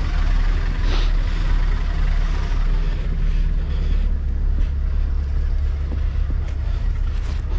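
Scania V8 truck engine idling with a steady low drone, with a few faint knocks and scrapes over it.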